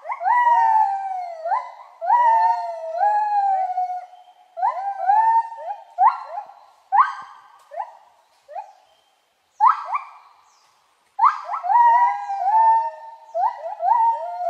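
Overlapping high-pitched animal calls, each rising sharply and then sliding down, in several bursts with short silent gaps between them.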